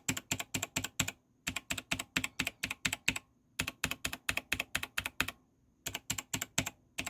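Razer BlackWidow Elite mechanical keyboard keys, fitted with HyperX double-shot PBT, stock Razer and new Razer PBT keycaps and no O-rings, typed rapidly. The clicks come in bursts of several strokes, about four or five a second, with short pauses between the bursts.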